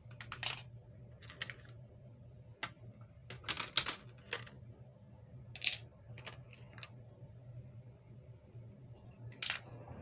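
Small plastic toys and their packaging being handled during unboxing: irregular short clicks and rustles, a few at a time, over a faint steady low hum.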